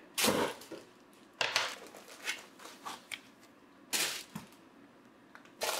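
Packing material being pulled off a newly unboxed bench DC power supply: white foam end blocks and a plastic bag rustle and scrape in four short bursts, the first and loudest just after the start.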